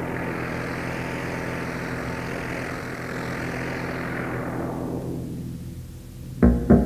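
Industrial electronic music: a noisy sweep swells up and fades away again over a steady low drone. Near the end a heavy beat of about three to four hits a second comes in.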